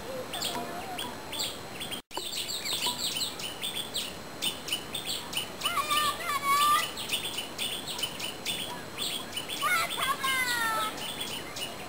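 Birds chirping: a quick, busy run of short high chirps, with a few longer whistled notes about halfway through and again near the end. The sound cuts out completely for an instant about two seconds in.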